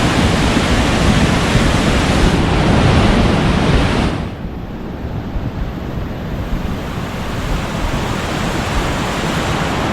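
Loud, steady rushing of a swollen, muddy river in spate, with wind buffeting the microphone. About four seconds in the sound becomes duller and somewhat quieter.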